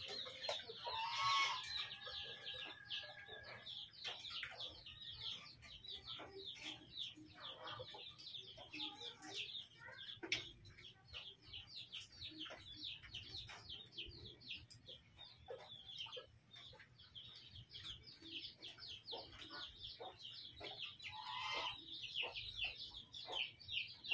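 Domestic chickens clucking, over a constant stream of fast, high chirps, with a louder call about a second in and another near the end, and scattered light clicks.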